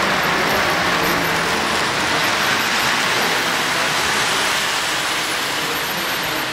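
Model trains running on the layout's track: a steady rushing rumble of wheels on the rails as two trains pass each other.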